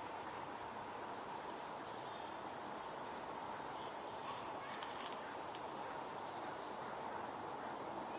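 Steady rush of a flowing stream, with a few faint, short, high bird calls around the middle.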